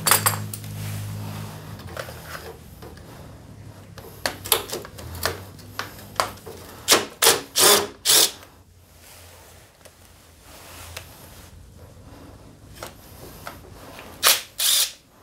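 Cordless drill-driver spinning in short spurts on the bolts around a scooter's starter motor. A quick cluster of spurts comes between about four and eight seconds in, and two more come near the end.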